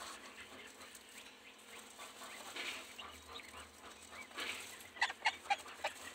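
Poultry calling: a quick run of about six short, sharp calls near the end, after fainter breathy sounds earlier on.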